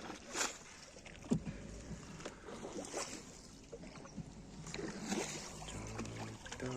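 Small boat being paddled across the water: short splashes and knocks of the paddle strokes come at irregular intervals, about one every second or two, and a low steady hum comes in near the end.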